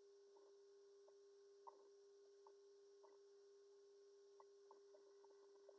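Near silence: a faint steady hum, with a few faint ticks scattered through.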